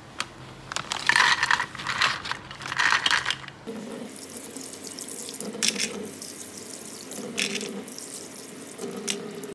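A plastic packet of dried bael fruit slices crinkling as it is handled, then, about four seconds in, a tap running steadily into a stainless steel sink as a dried bael fruit slice is rinsed under it, with a few splashes.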